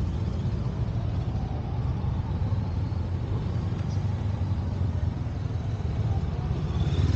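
Honda CL500 motorcycles' parallel-twin engines running at low revs in first gear as they weave slowly through a cone slalom, a steady low engine rumble.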